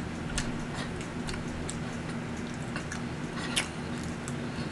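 Close-miked eating sounds: scattered wet mouth clicks and lip smacks of someone chewing a forkful of food, over a steady low hum.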